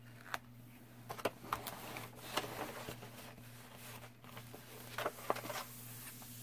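Plastic cover film on a sticky diamond painting canvas rustling and crackling as it is handled, in irregular crinkles and ticks.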